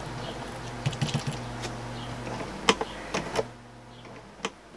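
Low hum of a Tri-ang HO model F-unit diesel's electric motor, powered but stalled and not turning the wheels, with a few sharp clicks as the model is pushed along the track. The hum stops about three and a half seconds in.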